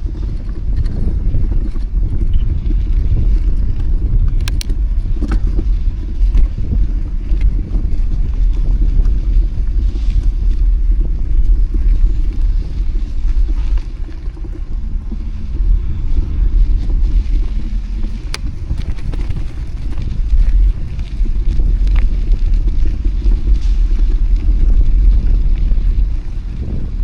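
Low, fluttering rumble of wind buffeting the microphone of a camera riding along on a moving bicycle, with a few faint clicks.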